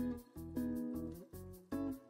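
Background music with a steady beat: plucked, mellow notes over a bass line.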